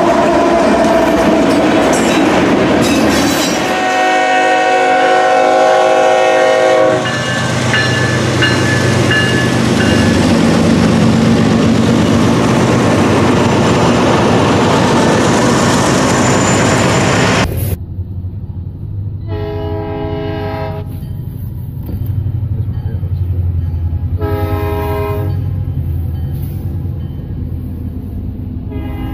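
Freight train with diesel locomotives passing close by, wheels and engines rumbling, with one chime air horn blast of about three seconds. After a sudden cut, another diesel locomotive sounds its air horn for a grade crossing: two long blasts and the start of a third near the end, with engine rumble between them.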